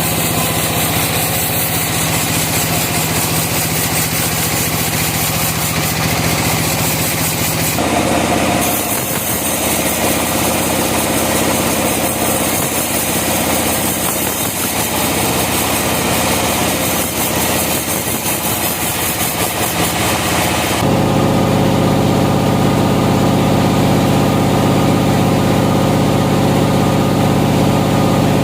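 A sawmill's engine running steadily. Its sound changes abruptly about eight seconds in, and again about twenty-one seconds in, when it turns deeper and louder.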